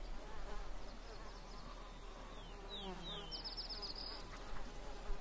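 Biting flies buzzing around a carcass, a steady drone with a few short high chirps about halfway through.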